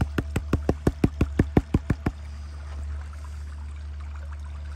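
Green plastic gold pan being shaken quickly side to side, the water and heavy concentrate sloshing and slapping against the pan in even strokes about six a second. The shaking stops about two seconds in, leaving a steady low hum.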